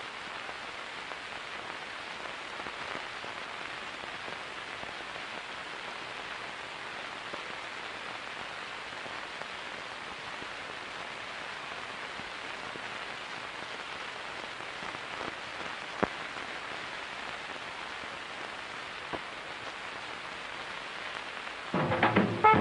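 Steady hiss with a few scattered clicks: the surface noise of an old film soundtrack running with no speech or music on it. Brass music comes in right at the end.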